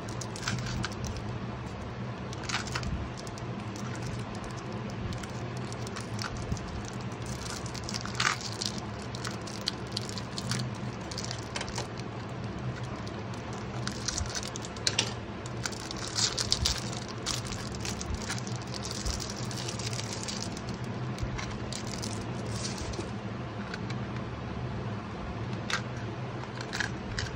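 Clear plastic shrink-wrap crinkling and crackling as it is handled and peeled off a small plastic case, in scattered short crackles and clicks that grow busier about halfway through, over a steady low hum.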